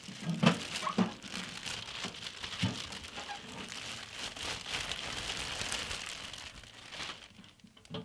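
Packaging crinkling and rustling as it is handled and pulled off a boxed toolbox, with a few light knocks in the first three seconds. It dies down about seven seconds in.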